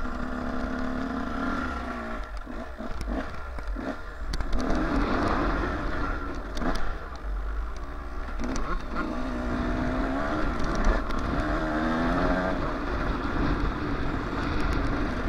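Yamaha YZ125 two-stroke dirt bike engine being ridden hard, its revs rising and falling again and again as the throttle opens and shuts.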